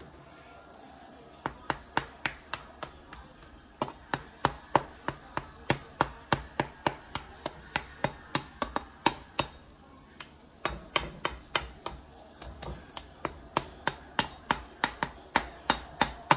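A chef's knife tapping repeatedly on the hard, broiled skin of a roast pork shoulder: sharp knocks about two or three a second, in runs with a short pause near the middle, showing that the skin has crisped.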